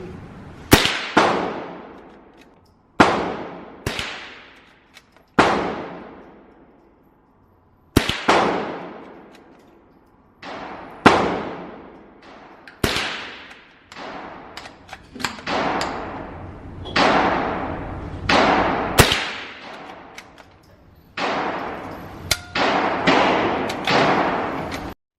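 Gunshots fired singly at uneven intervals, about twenty in all, some in quick pairs or strings of three, each followed by a long echoing tail of an indoor range.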